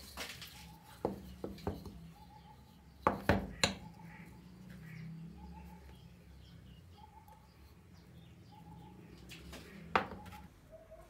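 Wooden blocks knocking against each other and being set down on a tabletop. A few sharp knocks come about a second in, the loudest pair about three seconds in, and another near the end.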